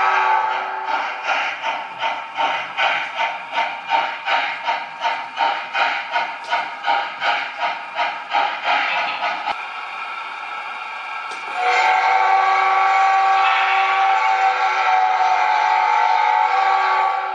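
Steam-locomotive sound from the Märklin H0 model of Union Pacific 844: steady exhaust chuffs at about two and a half a second, then after a quieter hissing stretch a long, loud multi-tone steam whistle blast held for about five seconds.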